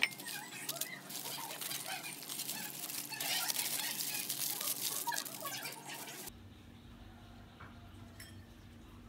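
Aluminium foil crinkling and rustling as it is folded and wrapped by hand, a dense run of small crackles. It stops abruptly about six seconds in, leaving a faint low hum.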